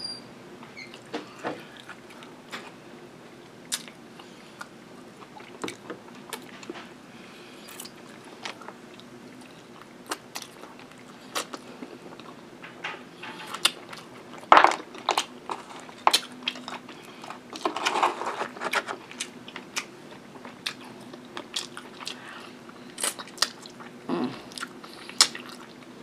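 Chewing and biting of barbecue ribs eaten off the bone by hand, with many short sharp mouth clicks and smacks scattered throughout; the loudest bursts of chewing come about 14 and 18 seconds in.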